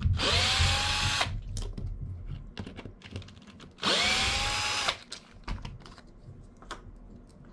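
Cordless electric screwdriver backing out R/C car chassis screws in two runs of about a second each, about four seconds apart; each time the motor whine rises quickly and then holds steady. Light clicks of the screws and small parts being handled follow.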